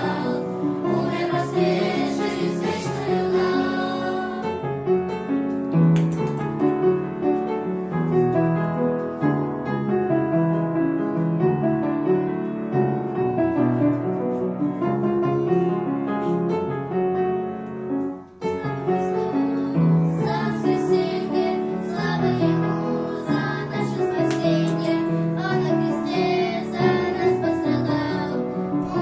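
A song: high voices singing a melody over keyboard accompaniment, with a brief drop-out about eighteen seconds in.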